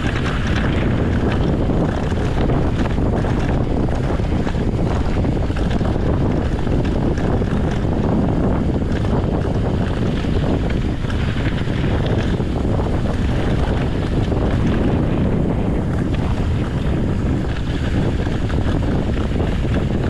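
Wind rushing over the camera microphone on a mountain bike descending a dirt trail at speed, over a steady low rumble with many small rattles and knocks from the tyres and bike on the rough ground.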